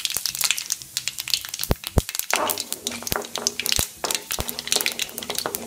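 Mustard, fenugreek and cumin seeds crackling and popping in hot coconut oil in an aluminium pan, a fast run of sharp crackles with a few louder pops.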